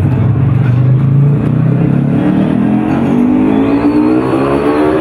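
Engine-like revving sound rising steadily in pitch over several seconds, full of overtones, starting about a second and a half in.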